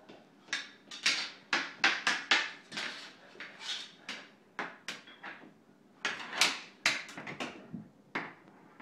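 Floor hockey sticks clacking and knocking against the puck or ball and the tile floor, a run of sharp irregular knocks about two to three times a second.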